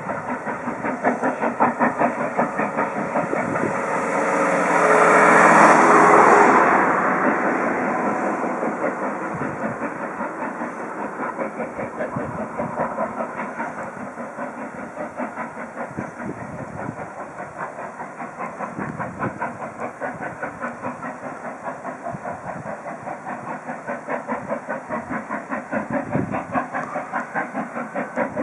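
Steam locomotive hauling a passenger train, its exhaust beating in a steady rapid rhythm of about three beats a second. A louder burst of steam hiss comes about five seconds in and fades by about seven seconds.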